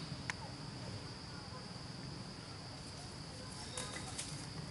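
Steady high-pitched drone of insects in the forest. A sharp click comes just after the start, and a few more clicks come about four seconds in.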